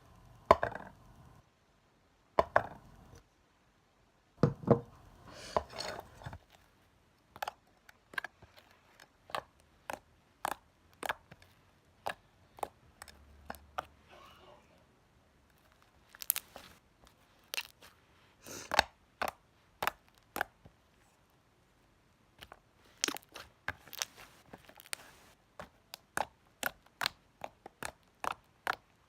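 Slime being squeezed and worked by hand, giving sharp clicks and pops, about one or two a second, with a short pause a little past the middle.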